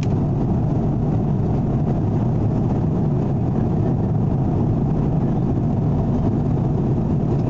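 Steady low rumble of an airliner's cabin noise, engines and airflow, without change.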